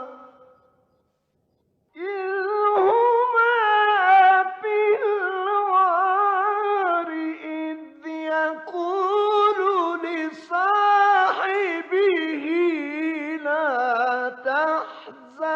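A solo voice chanting Quran recitation in the melodic, drawn-out style: long held notes with wavering, ornamented pitch. It starts about two seconds in, after a brief silence.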